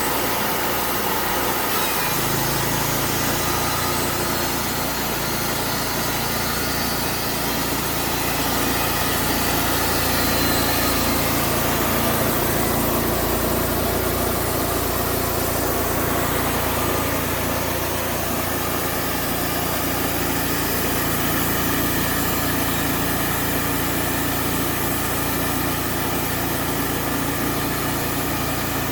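Portable band sawmill's engine running steadily under load while the band blade saws through an oak log; the engine's low hum changes about two seconds in.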